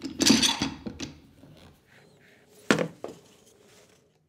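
Wood handling at a workbench: a bar clamp screwed tight onto a 2x4 with a scraping rattle, then two sharp wooden knocks about three seconds in as a 2x4 leg is set against the foot.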